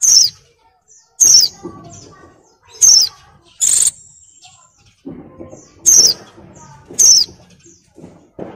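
White-eye (pleci), which the uploader presents as a female in heat calling to set males singing, giving six sharp, high calls that fall in pitch, about one a second, with softer chatter between them.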